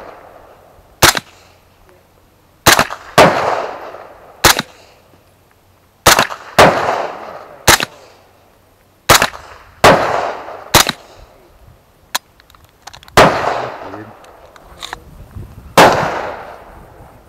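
AR-15-style rifle fired semi-automatically: about a dozen irregularly spaced gunshots, some in quick pairs, each cracking sharply and trailing off in an echo. Two fainter, shorter shots fall in between, near the end.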